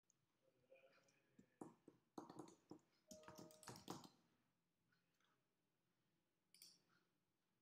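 Faint computer keyboard typing: a quick run of keystroke clicks over the first few seconds, then one more faint click about two and a half seconds later.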